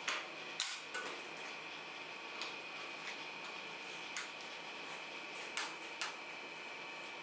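Metal scrapers striking and scraping the steel cold plate of a rolled-ice-cream pan as the ice cream is chopped and spread: several sharp clacks at irregular intervals over a steady high whine.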